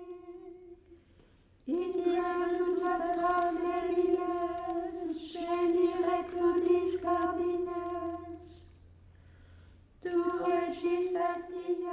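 Women's voices chanting Latin liturgical text unaccompanied, recto tono: every syllable sung on one unchanging note. A short held note opens, the chant comes in about two seconds in, breaks off for about a second near the end, and then resumes.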